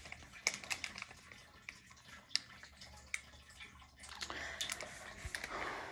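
Faint scattered clicks and taps, then a soft rustle about four seconds in: objects being handled close to the microphone.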